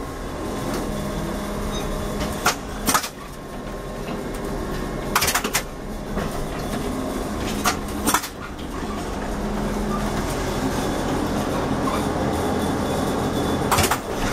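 A 1988 ZiU-682V trolleybus moving slowly under power: its DC traction motor and body run with a steady low hum. Sharp clacks, mostly in pairs, sound about four times.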